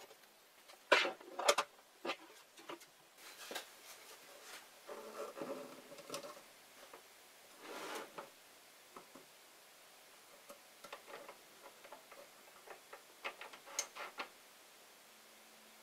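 Irregular light clicks and knocks, the loudest two about a second in, with a short scraping rustle between about five and eight seconds in.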